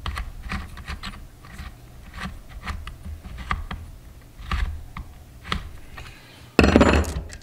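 Small metallic clicks and taps of a T-shaped chainsaw bar tool (scrench) turning the chain tensioner screw on a new chainsaw, with the chain and bar shifting. Near the end comes a louder scraping rattle lasting under a second.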